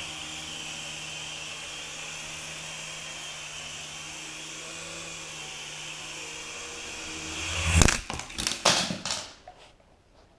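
Small electric RC helicopter's motor and rotors whirring steadily, swelling briefly before a crash: a loud clatter of several knocks as the rotor blades strike the wooden floor about eight seconds in, after which the whir dies away.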